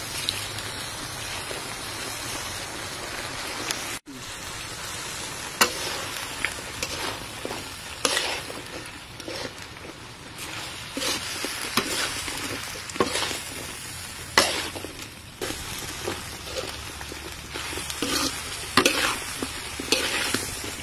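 Prawns and green vegetable stems sizzling as they are stir-fried in a wok, with frequent sharp clacks and scrapes as the food is tossed and stirred. The sound breaks off for a moment about four seconds in.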